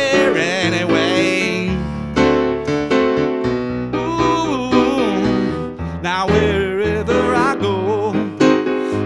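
Blues song played on a digital piano: chords and a walking bass line under a melody that bends and wavers in pitch, with no words.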